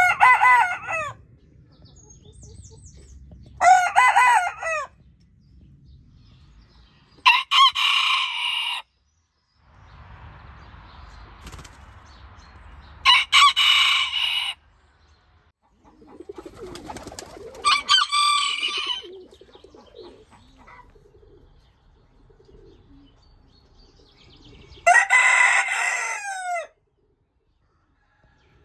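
Bantam roosters crowing in turn, among them an Indian game bantam and a Serama, about six crows a few seconds apart. Low hen clucking is heard between the crows.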